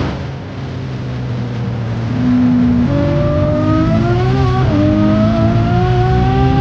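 A vehicle engine accelerating hard. Its pitch climbs steadily, drops sharply at a gear change a little under five seconds in, then climbs again.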